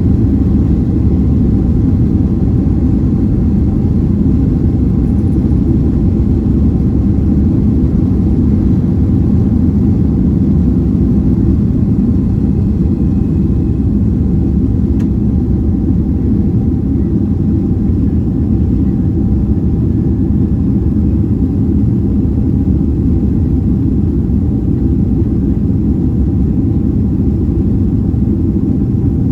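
Steady, loud engine and airflow rumble heard inside the cabin of a Boeing 767-300ER airliner, even throughout with a faint steady hum above it.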